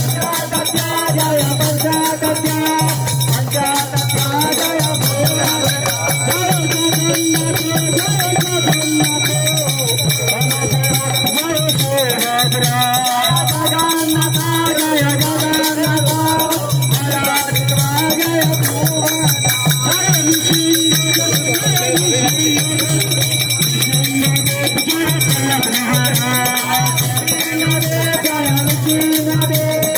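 Devotional kirtan music: group chanting with a steady drone and continuous jingling hand-cymbal strokes keeping a fast, even beat.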